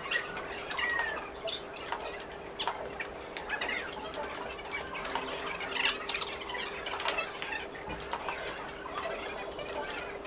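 Table tennis rally: the ball clicking off paddles and the table at an irregular pace, with short squeaks from sneakers on the floor, over a steady hum.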